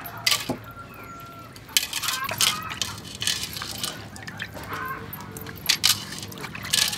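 Raw chicken feet being washed by hand in a stainless steel basin of water, with wet handling noise and a number of sharp clinks as feet and hands hit the metal bowls.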